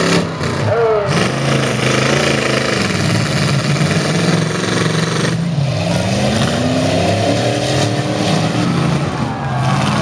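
Engines of several full-size demolition derby trucks revving and running hard together, their pitch rising and falling as they drive and push through the mud.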